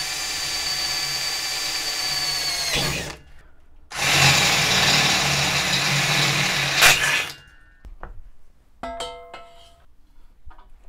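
Cordless drill boring through steel box-section tube, in two runs: a small pilot bit for about three seconds, the motor whine dropping as it stops, then after a brief pause a louder, rougher run with a larger bit. This is drilling an access hole in the tube wall.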